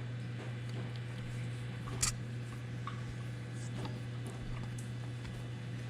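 Light handling clicks and taps on a small RC truck's parts, one sharper click about two seconds in, over a steady low hum.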